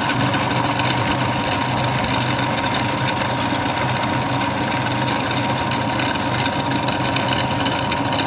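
Food processor motor running steadily at full speed, its blade whizzing cottage cheese and egg whites into a smooth batter.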